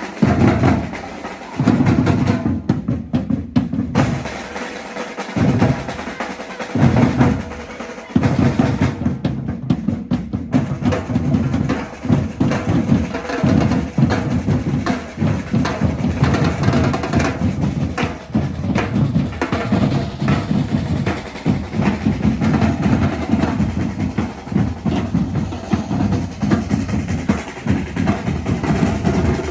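Batucada drum ensemble playing, snare drums and bass drums together in a busy rhythm. It plays in short bursts with brief breaks for the first several seconds, then runs on without a break from about a quarter of the way in.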